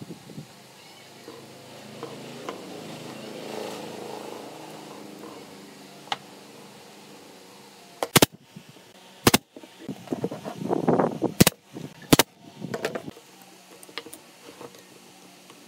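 A brad nailer firing four sharp shots into the corners of a pine frame, spread over about four seconds, with workbench handling clatter between them.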